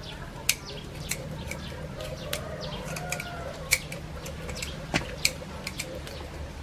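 Chickens clucking softly, with scattered short sharp clicks over a low steady background hum.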